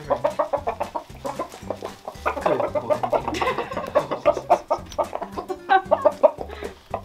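Roosters clucking in quick runs of short, repeated calls.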